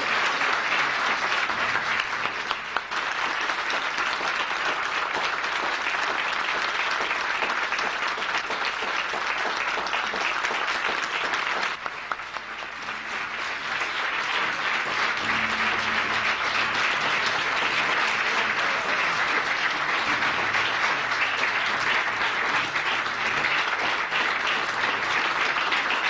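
Audience applauding steadily after a speech, a dense patter of many hands clapping; it dips briefly about halfway through, then picks up again.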